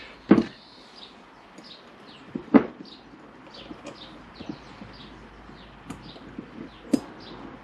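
Three sharp metallic clicks as internal circlips are worked into the grooves of a Honda VFR800 rear hub's bearing bores, the loudest about two and a half seconds in. Small birds chirp faintly throughout.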